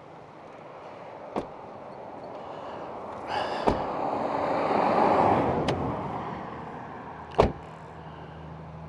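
Noisy road traffic going by, swelling to a peak about five seconds in and dying away, with a few sharp clicks. Near the end a truck door shuts with a sharp knock, the loudest sound.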